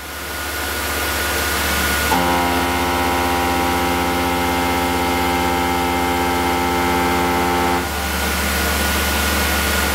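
CNC mill spindle at top speed with a steady hiss. A 1-inch Shearhog indexable cutter on a long 4.1-inch arbor plunges into an aluminum block from about two seconds in to near eight seconds, adding a steady pitched hum while it cuts. The cut is smooth and free of chatter, and it sounds great.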